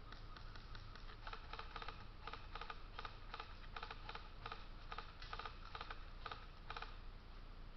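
Airsoft guns firing in quick bursts of two or three sharp clicks, repeated many times in a faint, rapid patter that stops near the end.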